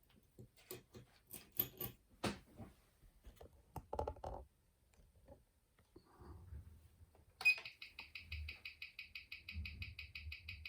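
Clicks and knocks as a wristwatch is handled and clamped into a timegrapher. About seven and a half seconds in, the mechanical watch's beat starts coming through the timegrapher's speaker as an even, rapid ticking, several ticks a second.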